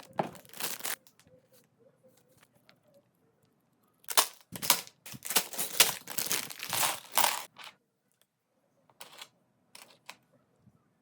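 Packaging of a Lego set being handled: bursts of crinkling and tearing, longest through the middle, then a few sharp clicks near the end.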